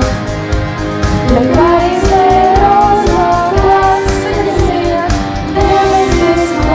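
A girl sings solo with long held notes over a backing track with a steady beat.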